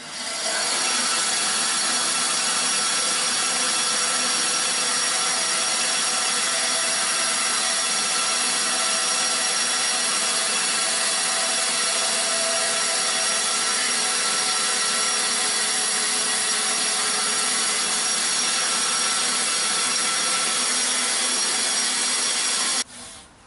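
Band saw running steadily while its blade cuts a slot into a white plastic cutting-board insert. The sound stops abruptly about a second before the end.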